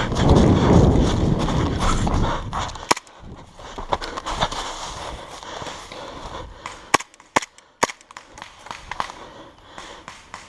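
A rush of rough noise for about the first three seconds. Then a string of sharp airsoft pistol shots at uneven gaps, several close together about seven to eight seconds in.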